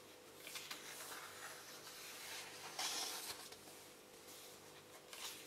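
Soft paper rustle of a hand sliding over and turning the large pages of a colouring book, with a louder swish about three seconds in as a page turns over.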